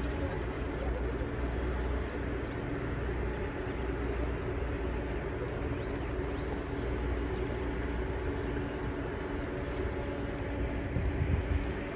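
Steady outdoor city background noise: a constant mechanical drone with low rumble, like distant traffic or building machinery, with a few faint ticks and some short knocks near the end.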